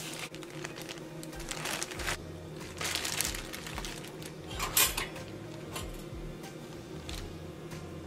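A slice of sourdough set into a Dash toaster's long slot and its carriage lowered: a few short rattles and clicks of metal and plastic, the loudest about five seconds in, over faint background music.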